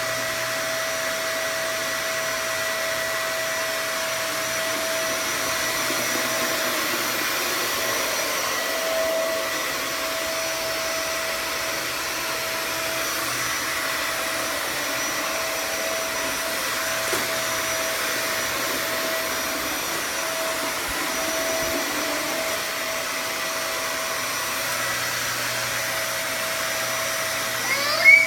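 Vacuum cleaner motor running steadily with a constant whine. About a second before the end comes a short, louder sound that swoops in pitch.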